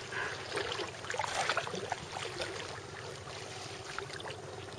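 Sea water sloshing and splashing around people wading and swimming in it, with small splashes that are busiest in the first two seconds and then settle to a gentle lapping.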